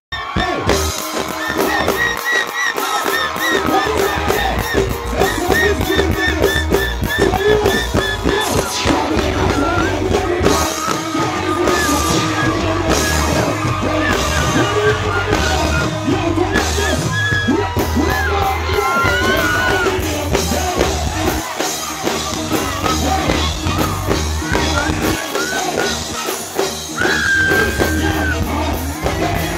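Live reggae band playing through a concert sound system, with a man singing and shouting into the microphone over a heavy, steady bass line.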